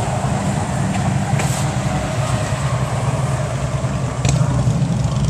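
A motor vehicle's engine running steadily with a low rumble, with a couple of faint clicks.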